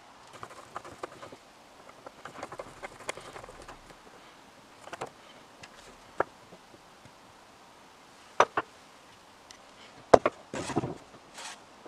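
Small painted metal parts of a hand breast drill being handled and fitted together on a wooden workbench: scattered light clicks and taps, a few sharper knocks near the end, and a short scrape as a part slides into place.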